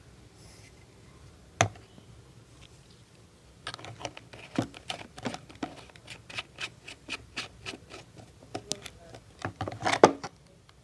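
Sharp hand slaps and taps of a percussive massage: a single crack a little over a second in, then a quick run of strikes, several a second, with the loudest cluster near the end.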